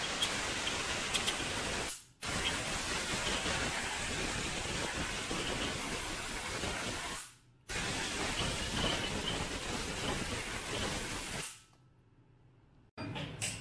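A steady hissing spray aimed at a Triumph 650 crankshaft. It cuts out briefly about two seconds in and again past the middle, then stops for a second or so near the end before starting again.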